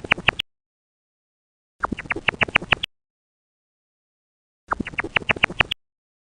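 Chipmunk chipping: bursts of about seven quick, high chirps, each burst lasting about a second and repeating roughly every three seconds with silence between.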